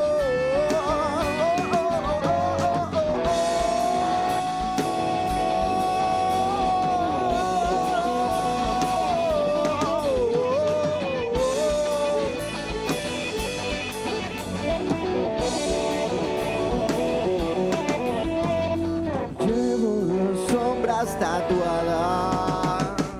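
Live rock band playing with guitars and drum kit. A long, held melodic line rides over them, and a short break comes near the end.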